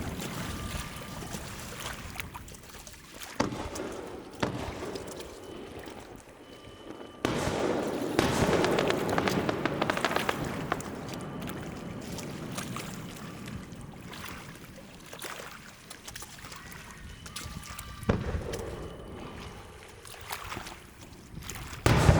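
Fireworks going off: several sudden booms, each followed by a rumbling tail. A dense stretch of crackling bursts starts about seven seconds in, and the loudest boom comes near the end.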